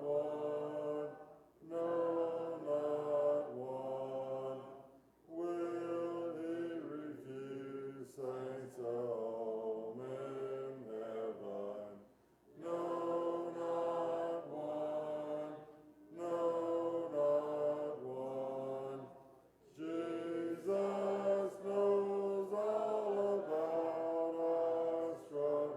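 Congregation singing a hymn a cappella in several-part harmony, in phrases a few seconds long with short pauses between them.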